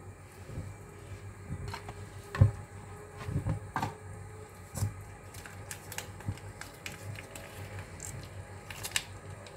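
Handling noise: scattered clicks and knocks as a plastic seasoning sachet is handled and squeezed out over a pot, the loudest knock about two and a half seconds in, over a low steady hum.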